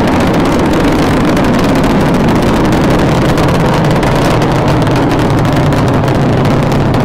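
Loud, steady rumbling noise with a low drone underneath. It starts abruptly and stays level throughout, like an engine-type sound effect.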